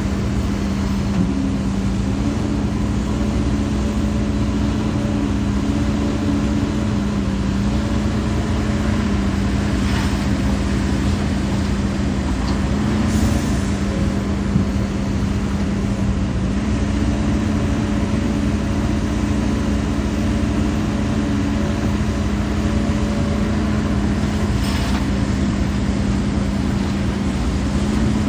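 HIDROMEK HMK230LC excavator's diesel engine running steadily under working load, its note shifting slightly up and down, with a few brief knocks.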